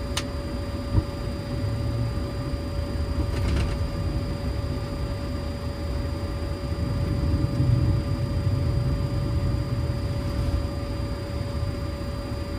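Boeing 737-800 flight deck while taxiing: steady low rumble of the engines at idle and the air conditioning, under a constant thin electrical hum, with a single sharp click about a second in.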